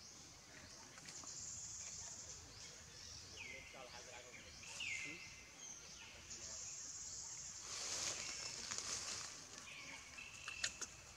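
Faint outdoor ambience of repeated high-pitched wild animal calls, each a short hissy note that drops at its low end, with a louder noisy stretch about eight seconds in.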